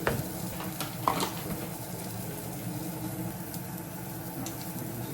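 Kitchen cooking sounds: a few sharp clicks and clinks of utensils in the first second and a half, over a steady low hum.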